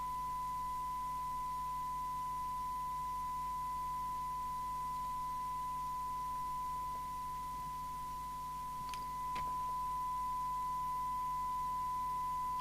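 Steady, unbroken test tone from an Amstrad CB901 FM CB radio's receiver, demodulating the modulated signal from a test set during receiver alignment. A couple of faint clicks sound about nine seconds in.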